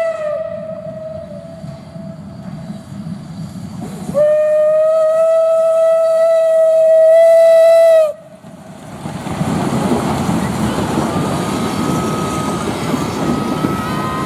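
Steam locomotive whistle: one blast ending about half a second in, then a loud, longer blast of about four seconds that cuts off sharply. After it comes the steady noise of the train's wheels on the rails as the coaches and wagons roll past close by.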